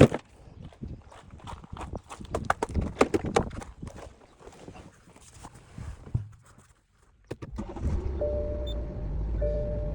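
Clicks and knocks of parts being handled for the first several seconds. About seven and a half seconds in, the BMW 523d's just-reassembled heater blower comes on with a steady rush of air and a low rumble, now without its earlier abnormal noise, while a short tone repeats about once a second.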